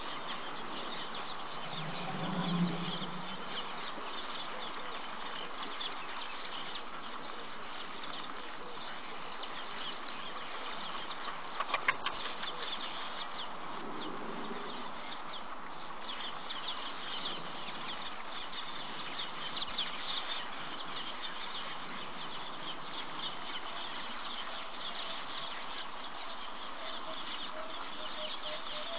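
Birds calling and chirping over a steady high hiss, with a brief low sound a couple of seconds in and a quick cluster of clicks about twelve seconds in.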